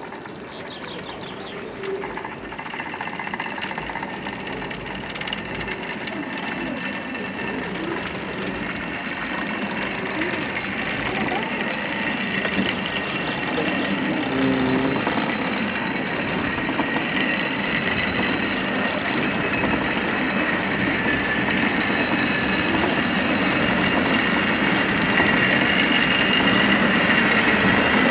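Water-balanced cliff railway car running along its steep rails: a steady rolling rumble of wheels and cable gear that grows gradually louder, with a thin high whine strengthening in the second half.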